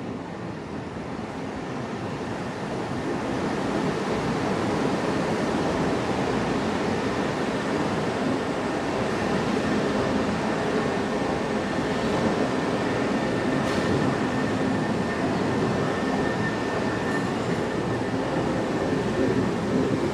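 Loud, steady mechanical rumble of a large vehicle running close by. It builds over the first three or four seconds and then holds, with a faint thin squeal running through the second half.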